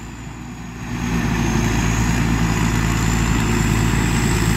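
Diesel engine of a rice combine harvester running steadily as it cuts ripe rice, a steady hum that grows louder about a second in.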